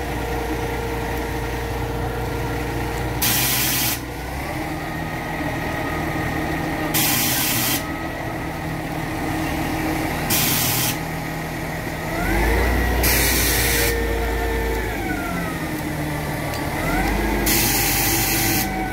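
Crane truck's diesel engine running steadily, its revs rising and falling back twice in the second half as the crane works. Five short, loud hisses cut in at intervals.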